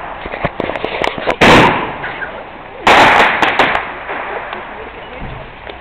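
Fireworks going off: two loud bursts about a second and a half apart, each fading away over a second or so, with sharp crackling pops around them.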